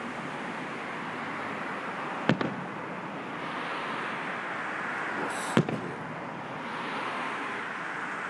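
Two aerial firework shells bursting: two sharp bangs about three seconds apart, each followed by a brief echo, over steady background noise.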